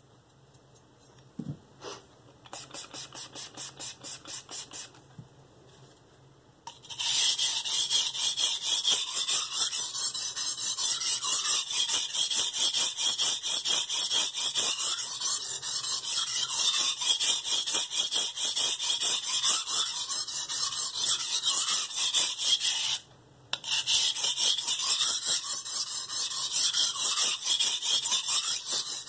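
Steel santoku blade ground back and forth on a coarse Shapton Pro 320-grit whetstone: fast, rhythmic rasping strokes. A few lighter strokes come first, then after a short break a long run of loud strokes, with one brief pause near the end.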